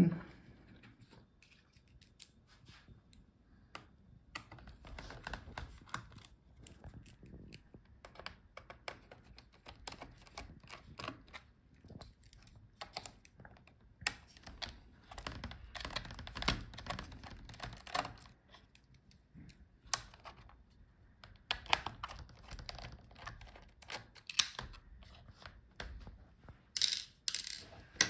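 Phillips screwdriver turning out small screws that hold a laptop battery, giving faint irregular clicks and ticks of the driver tip and screws on the metal and plastic chassis. There is a louder flurry of clicks near the end.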